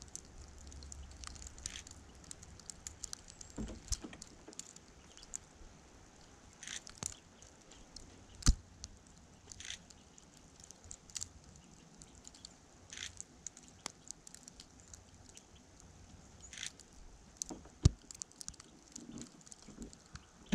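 Irregular light ticks and taps of wet falling snow landing on the camera, with two sharper knocks about eight and eighteen seconds in. A low wind rumble on the microphone sounds in the first two seconds.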